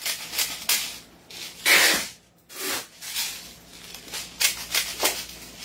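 BBs being pushed from a tube speed loader into a Glock gas-blowback airsoft pistol magazine. The loading makes a series of short scraping strokes, about seven at irregular intervals, the loudest near two seconds in.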